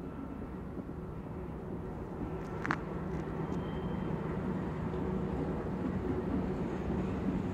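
GE AC4400CW diesel-electric locomotive running under power as it passes, pulling a string of grain hoppers, its 16-cylinder diesel engine humming steadily and slowly getting louder. One sharp click comes a little under three seconds in.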